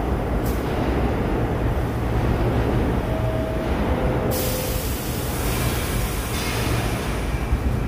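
New York City subway train in the station, with a steady low rumble. A high hiss sets in suddenly about four seconds in, just after faint squealing tones.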